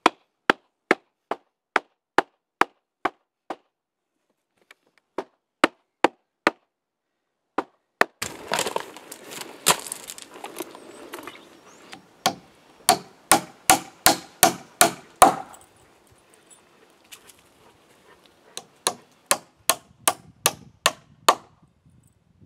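A hammer driving nails into the spruce (white deal) rails of a wooden gate, pinning the mortise-and-tenon joints. The sharp strikes come about two or three a second, in four runs with short pauses between them.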